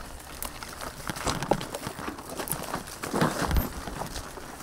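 Footsteps on a trail, irregular steps with faint rustling between them.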